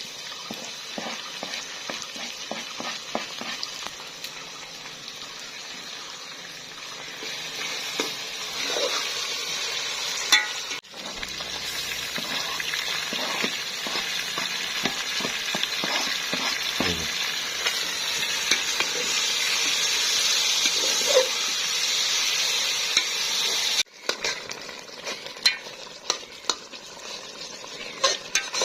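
Chicken karahi frying and sizzling in a karahi, with a metal spoon scraping and clicking against the pan as it is stirred. The sizzle steps up abruptly about eleven seconds in and drops back abruptly near the end.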